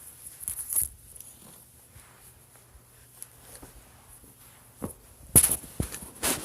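Handling noises: a little rustling near the start, then a few sharp knocks and rustles about five seconds in.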